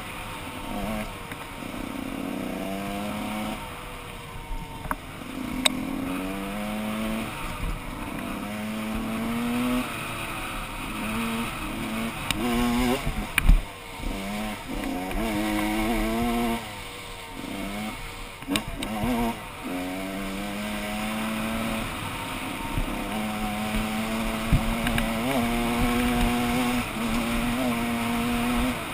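Gas Gas EC 125 two-stroke enduro engine heard on board while riding, its note climbing and dropping back again and again as the revs rise and fall through the gears. A few sharp knocks sound along the way.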